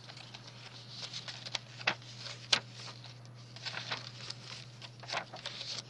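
Paper rustling and light taps and clicks as the pages and tucked-in paper pieces of a handmade journal are handled, with a few sharper clicks about two seconds in and again near the end, over a steady low hum.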